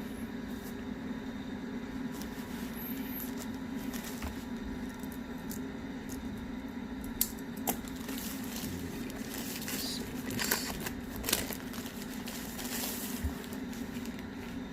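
Handling noises from unboxing gimbal accessories: scattered clicks and knocks, with a stretch of rustling and bumps about two-thirds of the way in, over a steady low hum.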